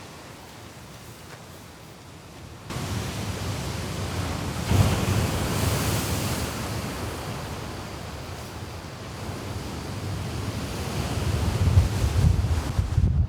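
Sea waves washing onto the shore in a strong wind, with gusts buffeting the microphone. It is quieter at first, jumps louder about three seconds in, and a wave surges about five seconds in. The low wind rumble builds toward the end.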